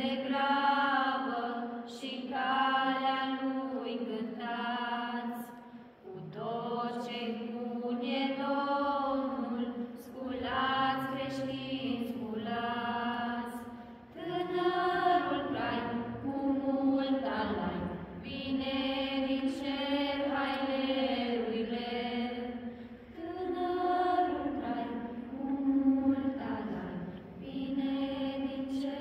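Group of carolers, mostly women's and girls' voices, singing a Romanian Christmas carol (colindă) without instruments, in sustained phrases with short breaks between them.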